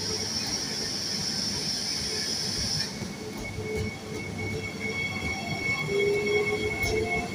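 Double-deck regional train rolling slowly along the platform track, a high hiss at first. About three seconds in, its wheels start a steady high squeal on the rails, joined near the end by a lower, slowly rising squeal.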